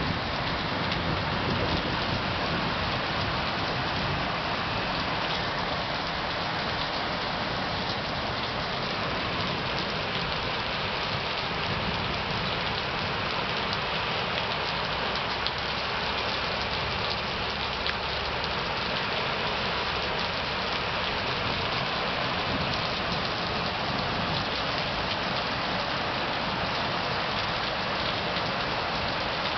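Rain from a storm falling steadily, with a dense hiss of drops hitting surfaces.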